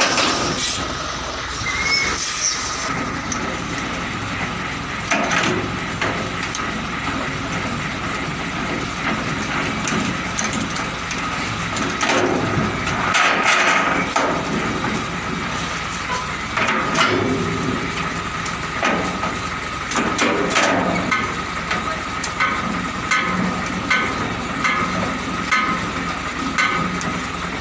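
Truck engine running steadily beside a parked container trailer, with scattered metal clanks and knocks and a run of short, fairly regular knocks near the end.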